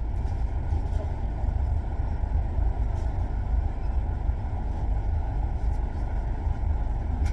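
Steady low rumble of a car driving, with road and engine noise throughout.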